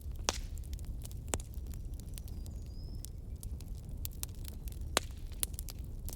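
Campfire burning: wood crackling with frequent sharp pops over a low, steady rumble of the flames. Three louder pops come about a third of a second in, at about a second and a quarter, and about five seconds in.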